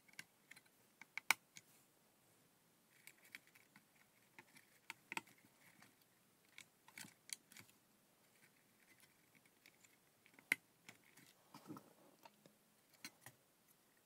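Faint, scattered small clicks and taps of spacers and a circuit board being handled and pressed into place, with a couple of sharper clicks standing out.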